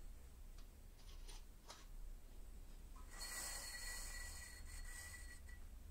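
Pencil rubbing against the side face of a turning grinding wheel for about two and a half seconds, a scratchy hiss with a faint steady whine in it, as it marks the wheel's end-face runout. A few light handling clicks come before it.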